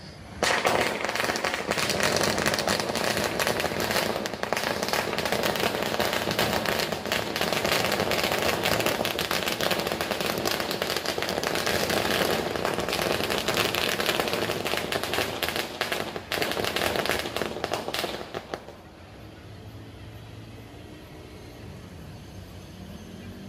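A long string of firecrackers going off in a rapid, continuous run of bangs and crackles for about 18 seconds, then stopping abruptly.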